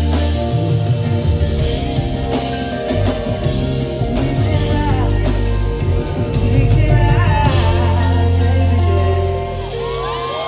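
Live band with a singer: drums, bass and electric guitar playing loud through a hall's PA, heard from within the audience. The heavy bass drops out near the end.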